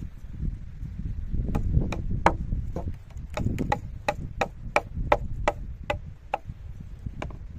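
Wind buffeting the microphone as a steady low rumble, with a quick run of sharp clicks or knocks, about three a second, starting about a second and a half in and stopping near the end.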